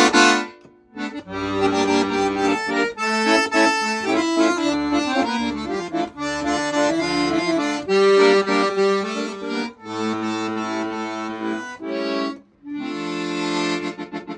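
Voshod 120-bass, three-voice piano accordion playing a tune, with a right-hand melody over left-hand bass notes. The sound breaks off briefly about a second in and again near the end, then a chord is held.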